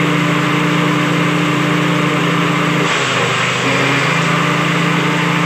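Small single-cylinder petrol engine running a six-blade grass chopper at a steady speed. About three seconds in its note dips and wavers for about a second, then comes back to the same pitch.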